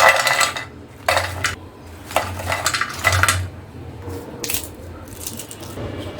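Crisp homemade tomato chips crunching and crackling in about five short bursts, roughly a second apart. The sharp crackle is the sign that the chips are fried fully crisp.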